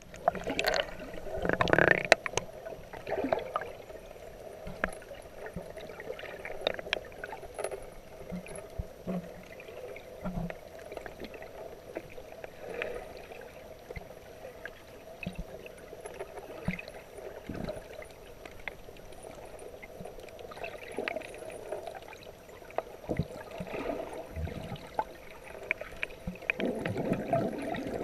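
Sea water heard through a submerged camera: a muffled, steady watery wash with scattered small clicks and knocks. There is louder splashing and churning in the first two seconds and again from near the end.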